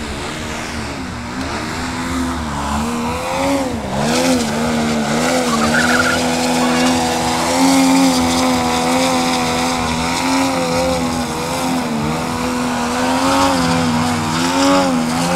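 Desert Aircraft DA-200 two-stroke petrol engine of a 41% scale Extra 330 SC model aerobatic plane running at high power while the plane hovers nose-up. Its note wavers up and down with constant throttle corrections, dipping sharply and climbing back about four seconds in.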